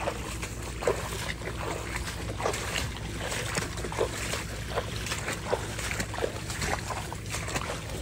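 Footsteps squelching through mud and shallow water in a marsh, one short wet suck at each step at walking pace, over a steady low rumble.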